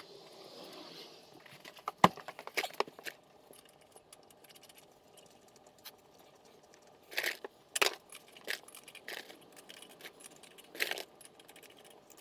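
Scattered metal clinks and rattles from sockets and lug nuts being handled during a wheel change. They come singly and in short clusters, with the loudest group about seven seconds in.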